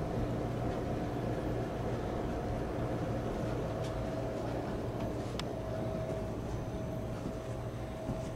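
Houseboat air-conditioning unit running with a steady low hum and a faint held tone.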